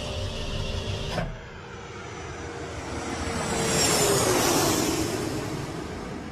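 A vehicle passing by at speed: a rush of noise that swells to its loudest about four seconds in and then fades, with a whine falling in pitch as it goes past. Before it, a steady engine hum cuts off about a second in.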